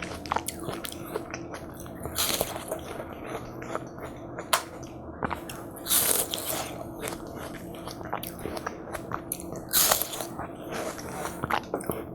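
Close-miked eating of watermelon hwachae: juicy watermelon chunks being bitten and chewed with wet, squishy crunches and small clicks, and louder bursts about every four seconds.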